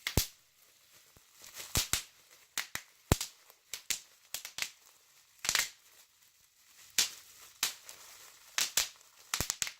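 Packaging being handled: irregular crinkles and sharp clicks, some in quick clusters.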